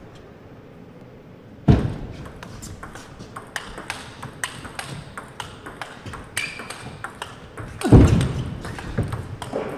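Table tennis rally: the ball clicks in quick succession off the paddles and the table. Two heavy thumps stand out, one about two seconds in and a louder one near the end.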